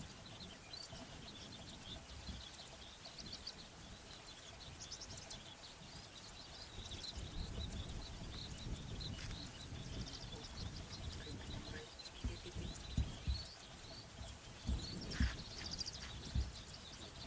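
Small birds chirping and twittering, with several quick trills. Low rumbles and a few heavy thumps come in the second half.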